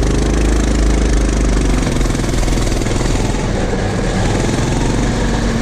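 Small single-cylinder mini bike engine running steadily at speed, with wind noise on the microphone.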